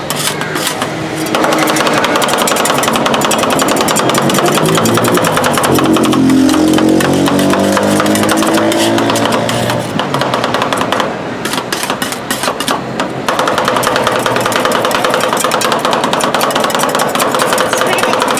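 Two metal spatulas rapidly tapping, chopping and scraping on the steel cold plate of a rolled-ice-cream machine as ice cream with Mars bar pieces is chopped and spread, a quick clatter of metal on metal. Behind it an engine hum rises and falls in pitch for a few seconds near the middle.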